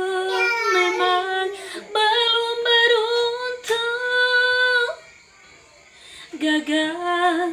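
A woman singing a slow song solo, holding long notes. She breaks off about five seconds in and starts again a little over a second later.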